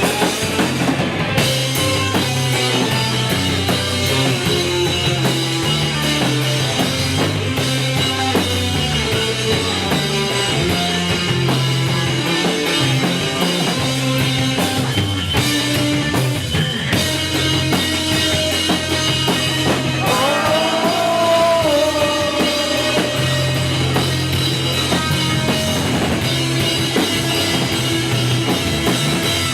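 Rock band playing live, with drum kit and a steady bass line; about twenty seconds in, a note bends up and down in pitch.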